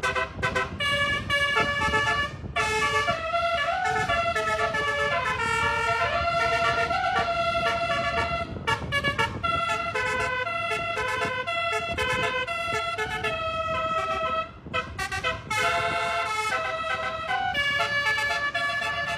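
Bus telolet 'basuri' musical air horn playing a fast tune of stepped notes, in phrases with short breaks about eight and fourteen seconds in, over a low rumble.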